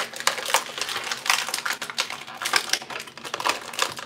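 Stiff plastic packaging tray crackling and clicking as action figures are pried out of it, in quick irregular snaps.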